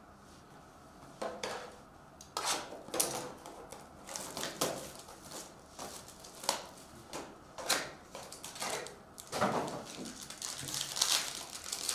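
Handling a cardboard trading-card box and a foil-wrapped Panini Prizm Choice pack: scattered taps, clicks and rustles, then a longer crinkling and tearing of the pack's wrapper as it is opened near the end.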